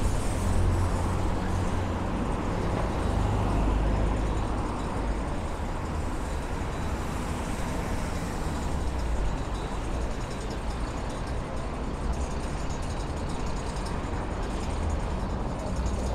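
Busy city street traffic: a steady rumble of cars and buses going by.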